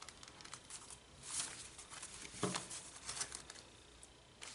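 Soft rustling and sliding of paper card stock and envelopes being handled and set down, with a brief swell of rustling about a second and a half in and a light knock about two and a half seconds in.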